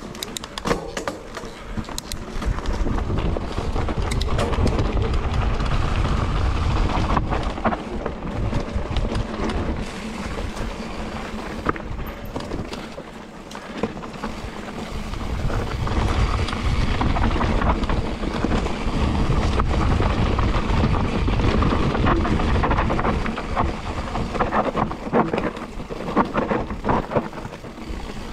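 Electric enduro mountain bike riding fast down a dry dirt trail: heavy wind buffeting on the action-camera microphone, with tyres crunching over dirt and stones and the bike rattling over bumps. The rumble eases briefly about halfway through, then builds again.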